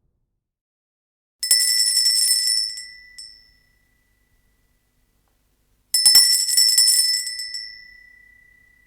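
A tiny bell rung in two bouts about four and a half seconds apart. Each bout is a quick run of clear, high rings on a steady pitch that dies away over a second or so.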